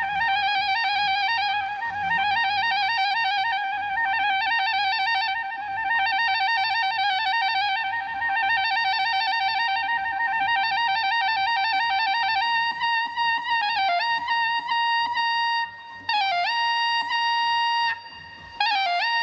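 Solo soprano saxophone melody. It opens with a fast, rippling, trill-like figure that hovers around one note for about twelve seconds, then moves to long held higher notes with short dips in pitch and brief breaths between them.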